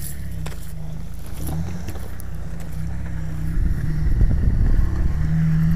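Jeep Wrangler TJ engine running at low revs as the off-road Jeep crawls up a rocky gully, growing louder about halfway through as it works harder and comes closer.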